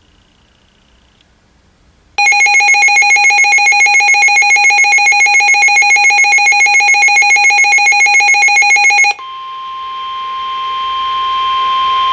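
Weather radio alert: the receiver's loud, rapidly pulsing, ringing alarm sounds for about seven seconds, then cuts to the steady 1050 Hz NOAA Weather Radio warning alarm tone, which grows louder toward the end. Together they signal an incoming warning broadcast, here a severe thunderstorm warning.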